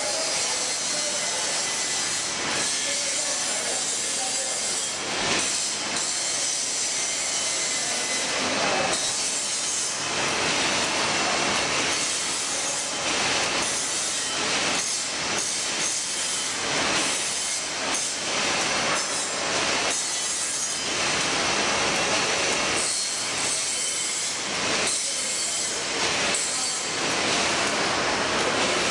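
Tymi Octans-126T thermal laminator running, feeding sheets through its conveyor and rollers: a steady mechanical rattle and hiss, full of quick irregular clicks.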